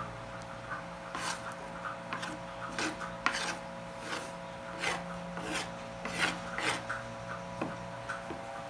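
About eight short rasping scrapes, irregularly spaced, over a steady hum and a faint regular ticking.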